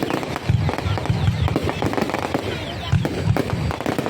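Fireworks going off: a rapid, irregular run of sharp cracks and pops over repeated deeper thuds.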